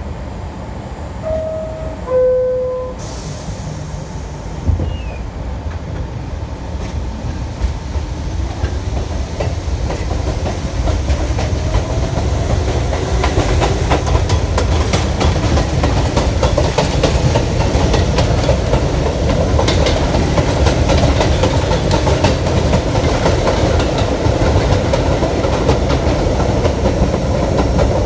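Subway train's two-note descending door chime, then the train pulls away on elevated track: the traction motors whine up in pitch as it speeds up, and the wheels clatter over rail joints, growing steadily louder.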